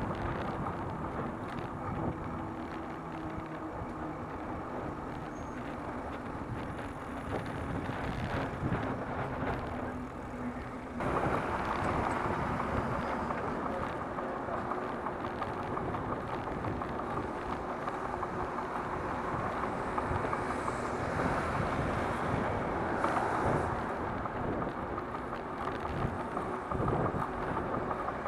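Wind rushing over a bicycle-mounted camera's microphone while riding in city traffic, mixed with tyre-on-road and car engine noise. It gets suddenly louder about eleven seconds in.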